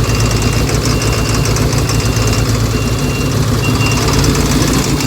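Cummins diesel engine of a Case bulldozer idling steadily. Its sound is not good, which the mechanic puts down to a faulty high-pressure fuel pump sensor connector that is not working properly.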